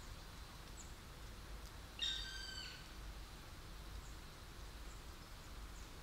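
Black woodpecker giving a single drawn-out call about two seconds in, slightly falling in pitch, over faint steady background hiss.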